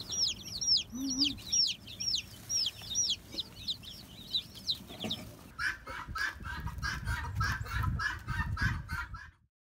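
Many baby chicks peeping: high, arched chirps, two or three a second, for about five seconds. Then a fast, even run of short strokes, about three a second, which cuts off suddenly near the end.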